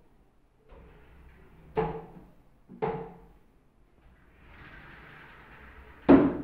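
Sliding shutters of a laminated plywood wardrobe loft rolling along their track and knocking against the frame as they are pushed open and shut. Two sharp knocks come about a second apart, then a longer slide, then the loudest bang near the end.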